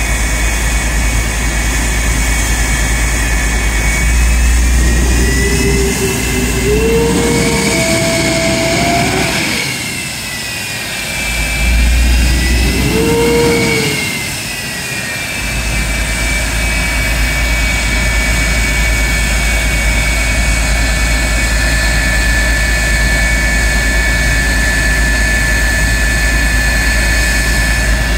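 CF-104D Starfighter's J79 turbojet running on the ground with a steady whine. Twice, about a quarter and about halfway in, its pitch and loudness rise and then fall back.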